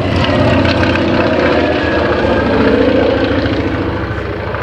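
Antonov An-2's nine-cylinder radial engine and propeller as the biplane flies past, growing louder to a peak about three seconds in, then fading away.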